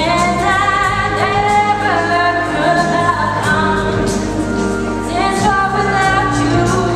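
A woman singing a song into a microphone, held notes with vibrato over instrumental backing with a steady beat.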